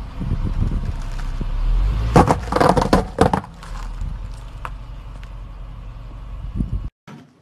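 A car tyre rolls onto a block bristling with toothpicks and crushes it, giving a burst of loud cracking and crunching about two seconds in. The car's engine rumbles low underneath.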